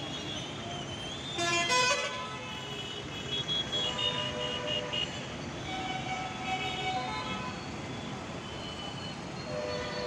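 Town traffic with vehicle horns honking several times over a steady street hum; the loudest, longest horn blast comes about a second and a half in.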